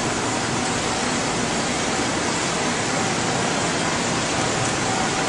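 Steady rushing noise of fans and air handling from the equipment in a synchrotron experimental hall, with a faint steady hum.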